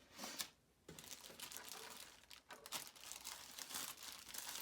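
Packaging crinkling and rustling as items are handled and unwrapped, with many small crackles.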